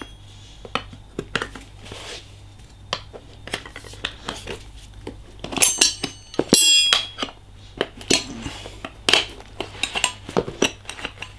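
Scooter wheel and metal tools being handled while fitting a tyre: scattered clicks, knocks and metallic clinks. The loudest is a ringing metal clatter about five to seven seconds in. A faint low hum runs underneath.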